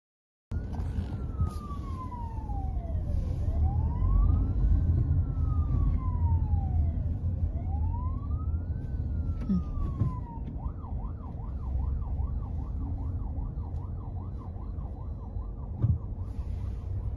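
Emergency vehicle siren sounding a slow rising-and-falling wail, then switching to a fast yelp about ten seconds in, over a steady low rumble of road traffic.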